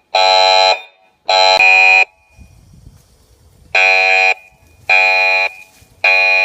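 Residential alarm system speaker sounding the fire evacuation tone in the temporal-three pattern: two loud buzzy beeps about a second apart, a pause of under two seconds, then three more beeps. It signals a fire alarm.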